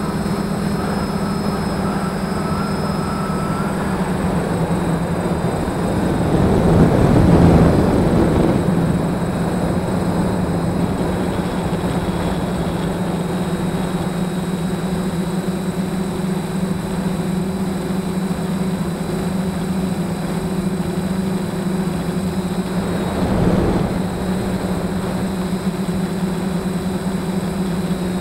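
DJI F550 hexacopter's motors and propellers running steadily, heard from a camera mounted on the airframe. A louder rushing swell comes about seven seconds in and a shorter one near twenty-three seconds.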